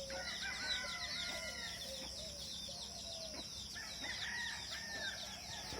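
Roosters crowing at a distance, answering one another, over a steady chorus of small birds chirping at dawn.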